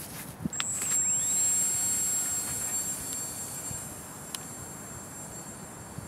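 Electric motor and propeller of a Micro Squire RC park-flyer plane spinning up to a high, steady whine about half a second in, with its pitch rising as it comes up to speed. The whine then slowly fades as the plane flies away.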